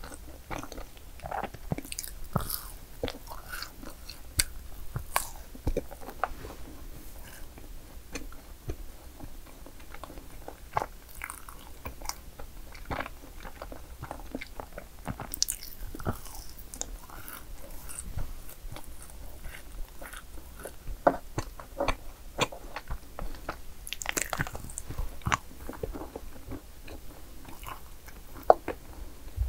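A person biting and chewing madeleines close to the microphone: irregular crisp clicks and crunches of bites and mouth sounds.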